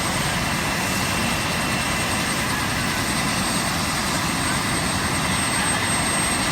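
Army UH-60 Black Hawk helicopter running on the ground, a steady, loud turbine and rotor noise with a thin high whine over it.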